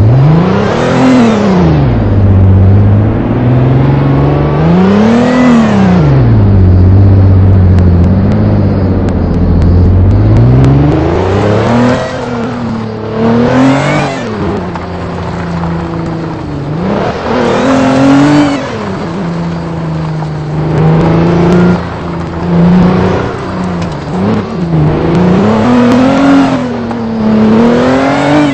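Vehicle engine being driven with the throttle worked on and off, its revs climbing and falling back every few seconds: two long pulls early, then many shorter ones.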